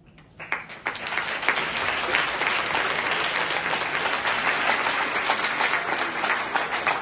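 An audience of students clapping. The applause starts about half a second in, builds within the next half second and then holds steady.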